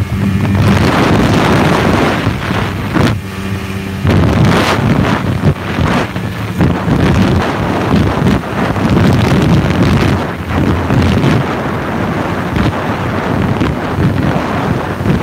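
Snowmobile engine running steadily while riding across open snow, with heavy wind rushing over the phone's microphone.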